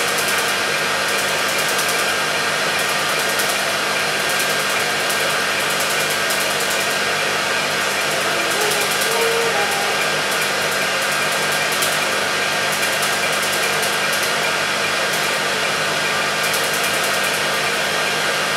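Laser tattoo-removal equipment running: a steady blowing hiss from the cooling-air blower and laser unit, with faint rapid ticks over it.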